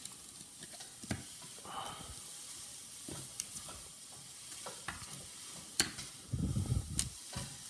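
Clear plastic coin sleeves crinkling and rustling as sealed silver bullion coins are handled and sorted by hand, with scattered sharp clicks, the two loudest a little under two seconds from the end and about a second after that.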